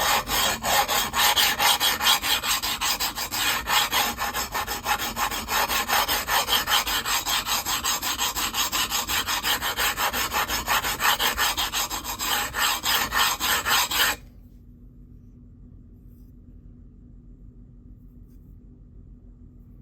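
Steel knife edge bread-knifed on a DMT extra-coarse diamond plate, scraped in rapid, harsh rasping strokes to grind away the damaged, stressed steel at the edge. The scraping stops suddenly about fourteen seconds in, leaving only a faint low hum.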